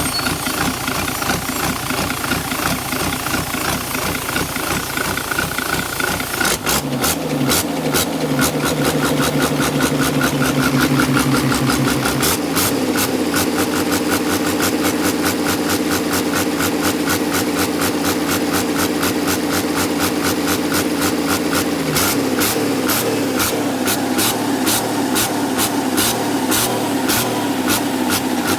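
Engine with a Holset HX50 turbocharger running, with a steady high whistle and hiss from the turbo, run to check the turbo for leaks. About six and a half seconds in, the engine note changes and the beat becomes sharper and more regular, and it shifts again around twelve and twenty-two seconds.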